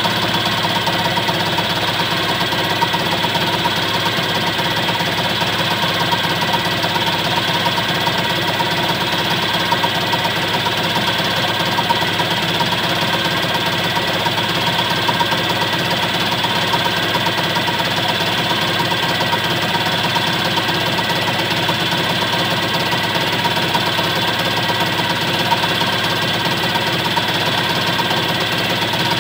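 Fly cutter on a TM20VL CNC mill taking a 1 mm facing pass across an aluminium block: a steady, even cutting noise over the running spindle, with several steady high tones.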